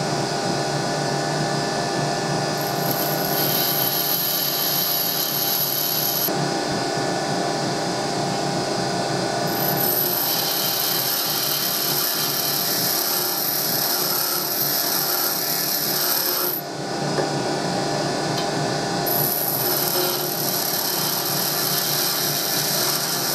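Bench grinder running steadily while a high-speed steel lathe tool is ground against the side of its coarser wheel to form the top rake. The grinding hiss comes and goes in three passes over the motor hum.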